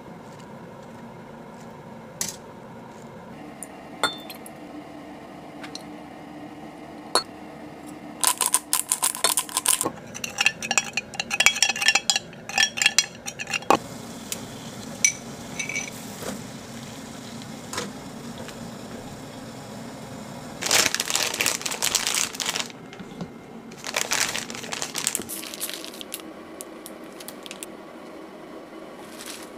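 Kitchen food-preparation sounds: a few separate knocks and clinks, then stretches of dense clattering of dishes, pots and utensils, the busiest about a third of the way in and again about two-thirds of the way in.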